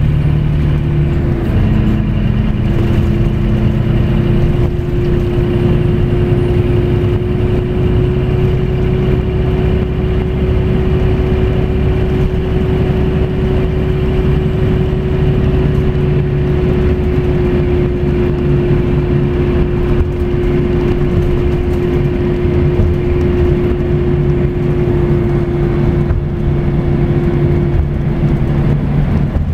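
Scania coach running steadily at road speed, its engine and road noise heard from inside the cabin near the rear, with a steady whine held through most of it that stops near the end.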